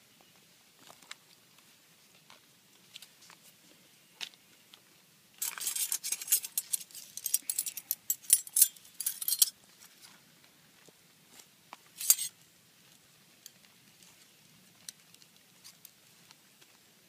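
Crinkling of an MRE peanut butter pouch being handled and squeezed: a dense crackling rustle starting about five seconds in and lasting some four seconds, a shorter crinkle a few seconds later, and small scattered clicks otherwise.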